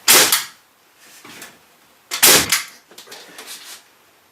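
Pneumatic nail gun firing twice, about two seconds apart, each a sharp crack with a short burst of air.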